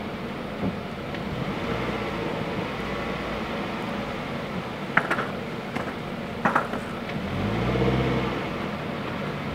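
Longboard set down onto an asphalt road with two sharp clacks about halfway through, then its wheels rolling as the rider pushes off, with a low hum swelling briefly near the end. A steady outdoor noise runs underneath.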